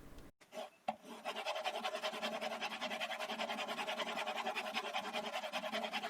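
Chisel held in a honing guide being ground back and forth on the coarse 300-grit side of a diamond sharpening stone to regrind its 25-degree bevel. The footage is sped up, so the gritty strokes come several a second in an even rhythm, starting about a second in.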